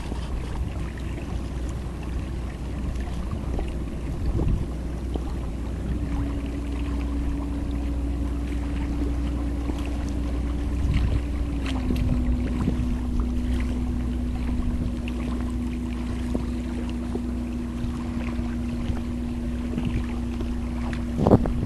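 Low rumble of water and wind around a kayak, with small splashes and lapping. A steady engine hum from a passing vessel comes in about six seconds in and drops a little in pitch about halfway, and there is a single knock near the end.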